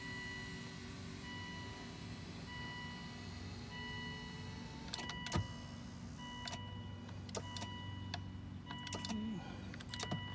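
Volvo XC90 power-seat motors whirring as the seat switches are worked, with a slowly falling motor tone in the first few seconds. A car warning chime beeps about once every second and a quarter, and switch clicks come several times in the second half.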